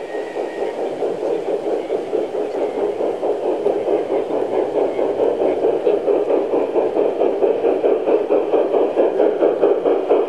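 G-scale garden railway train approaching on the near track, making a rhythmic pulsing sound about three beats a second that grows steadily louder as it nears.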